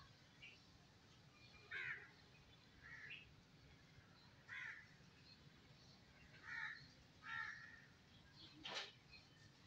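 Crows cawing faintly, about five short harsh calls spaced a second or two apart, with a sharp click near the end.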